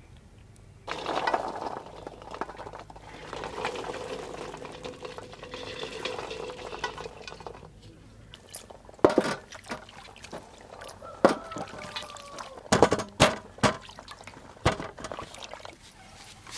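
Shelled Manila tamarind arils handled on steel plates: a rustling, pouring noise for several seconds, then a string of sharp clinks and knocks on the metal, one of them ringing briefly with a falling tone.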